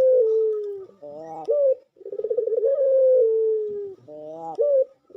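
Dove cooing in a repeated two-part phrase: a short rising note, then a long rolling coo that slowly falls in pitch. The phrase comes about every three seconds.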